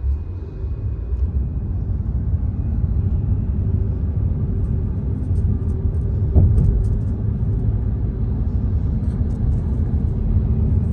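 Car road noise: a steady low rumble of tyres and engine while driving, with a brief knock about six seconds in.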